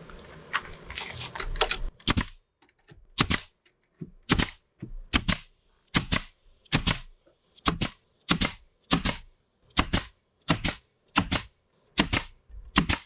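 Hammer driving nails into wood: steady, evenly paced blows, roughly one every three-quarters of a second, each a quick double hit. About two seconds in, lighter handling clatter gives way to the blows.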